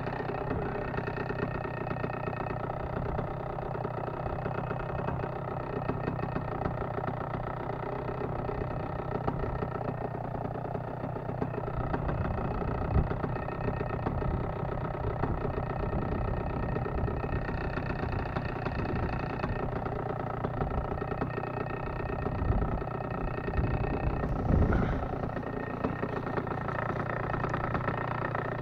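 Paramotor engine idling steadily, with uneven low rumbling in the second half, strongest about three-quarters of the way through.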